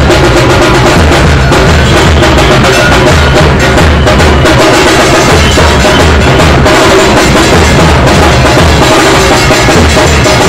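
Dhol and tasha drums played loudly and without a break: deep dhol beats under fast, crackling tasha strokes.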